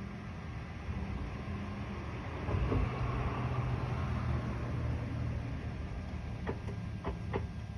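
Steady low mechanical hum from a 2007 Mitsubishi Outlander that won't start, with the key turned. It grows louder about two and a half seconds in, and a few sharp clicks come near the end.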